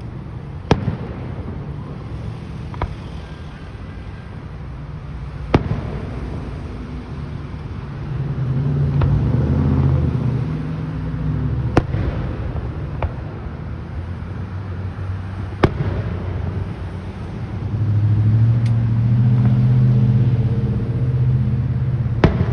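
Fireworks going off in a scattered series of sharp bangs, one every second or few, over a continuous low rumble. The rumble swells up twice, about a third of the way in and again near the end.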